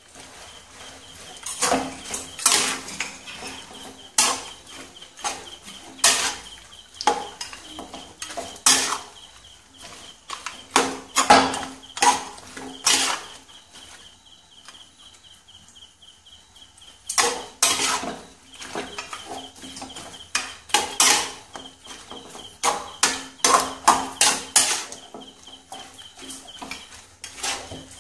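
A spoon scraping and knocking against a frying pan as half-cooked chicken pieces and spices are stirred, in irregular strokes with a pause of a few seconds about halfway through. A faint steady hum runs underneath.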